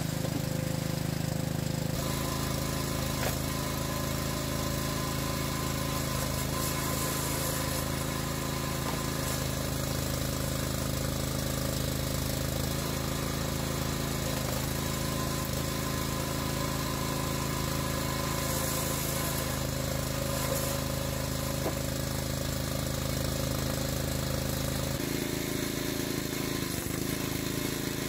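Small gas engine of a Wallenstein hydraulic log splitter running steadily while logs are split, its engine note shifting about two seconds in and again near the end.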